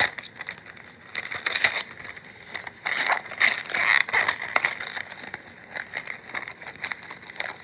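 Gift wrapping paper crinkling and tearing as it is pulled off by hand: a run of quick rustles and rips, busiest from about three to four and a half seconds in.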